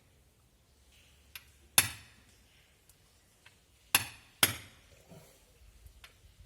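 Light hammer striking a punch to stake the rear hub nut's collar into the stub axle: three sharp ringing metal blows, one about two seconds in and two close together about four seconds in, with a couple of faint taps. The light hammer needs more than one blow per stake.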